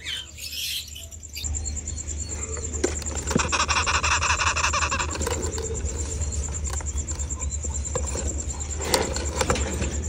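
Rustling and scattered knocks of a sugar glider nest box being handled and lowered from its cage, with a steady high insect trill behind.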